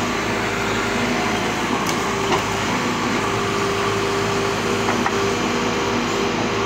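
Sumitomo SH210 hydraulic excavator running steadily as it works its boom and bucket in loose soil, with a few short knocks about two and five seconds in.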